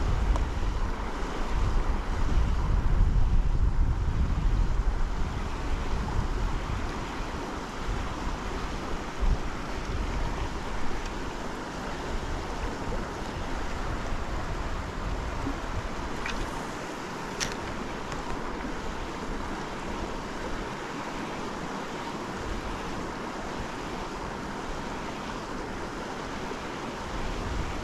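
River water rushing, a steady even wash, with wind buffeting the microphone for the first several seconds.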